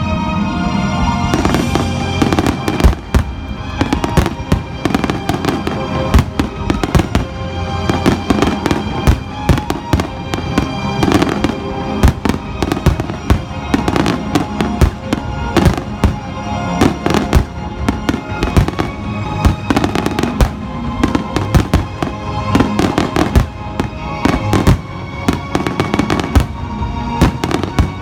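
Aerial fireworks going off in a rapid, continuous barrage of sharp bangs and crackles, with music playing underneath.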